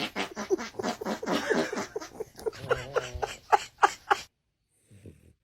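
A dog vocalizing in a quick run of short pitched calls, loudest near the end of the run, which cuts off abruptly about four seconds in.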